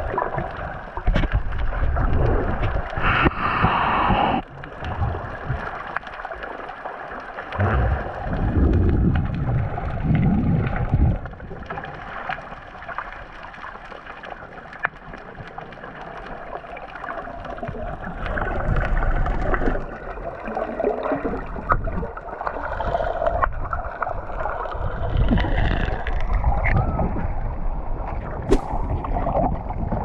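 Muffled underwater gurgling and sloshing of water around a submerged camera, with louder surges of bubbling every few seconds.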